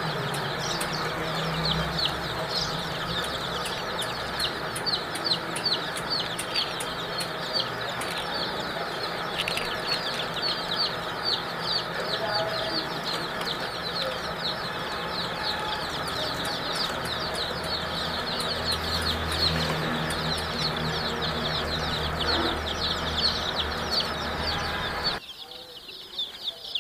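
A large flock of baby chicks peeping continuously, a dense chorus of short, high, falling cheeps overlapping one another. A steady low rumble underneath cuts off suddenly near the end while the peeping goes on.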